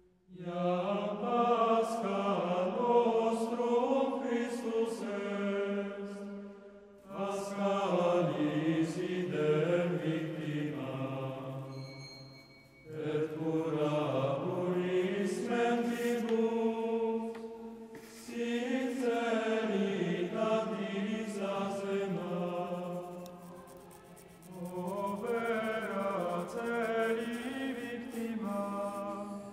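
Slow chanted vocal music used as a soundtrack, sung in five phrases of about six seconds, each ending in a short pause.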